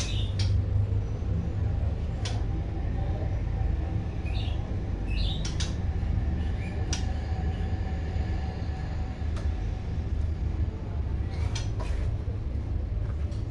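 A steady low rumble, with a caged songbird giving a few short chirps, several sharp clicks and taps, likely from the bird hopping on the cage perches.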